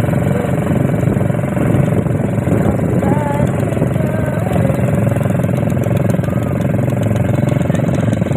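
ATV engine running steadily at an even speed.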